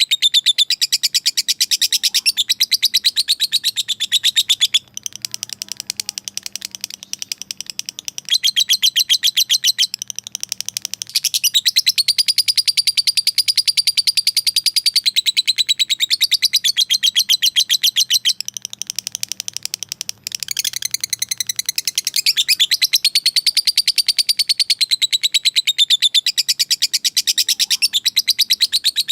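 Lovebird in a long 'ngekek': a fast chattering trill of sharp, high chirps, many per second, kept up almost without pause, with short breaks about five and twenty seconds in. This is the call lovebirds make to challenge a rival.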